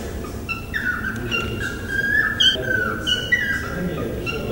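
Short phrases of high whistled tones, stepping between a few steady pitches and repeating about once a second, over a faint low murmur.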